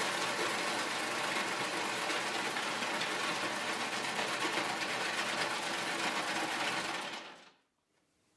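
Electric ice shaver running, its powerful motor and blade shaving ice from the hopper out of the chute: a loud, steady mechanical whir that stops about seven seconds in.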